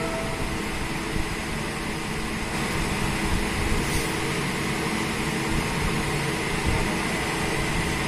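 Steady mechanical running noise with a faint steady high whine. There is no revving.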